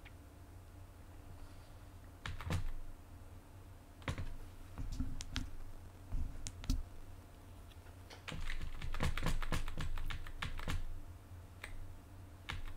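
Keys clicking on a computer keyboard in scattered short runs, with a busier stretch of keystrokes about eight to eleven seconds in.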